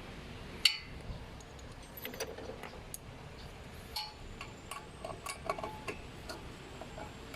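Light metal clinks and taps of hand tools and small screws being handled while the brake disc screws are fitted: one sharp click under a second in, then a run of quick, briefly ringing clinks from about four to six seconds in.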